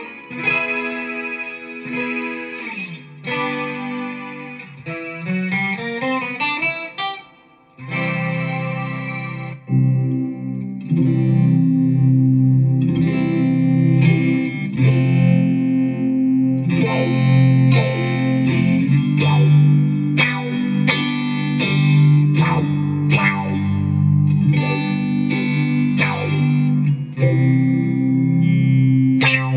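Electric guitar played through a BOSS SY-200 synthesizer pedal, giving sustained synth tones with pitch glides in the first part, then a denser run of low, picked synth notes from about ten seconds in.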